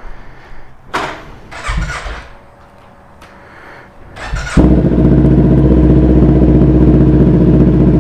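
A few short rustling knocks, then about four and a half seconds in a 2019 Kawasaki Ninja 400's parallel-twin engine is cranked briefly on the starter, catches, and settles into a steady idle.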